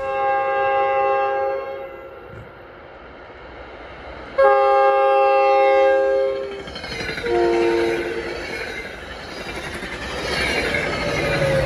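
Locomotive air horn sounding a chord of several notes: two long blasts, then a shorter, lower-pitched one. A rushing train noise follows and swells near the end.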